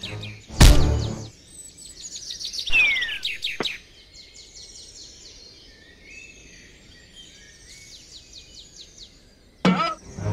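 Jungle ambience of many small birds chirping, broken by a loud thump less than a second in and a short falling whistle a couple of seconds later; another sudden sound comes just before the end.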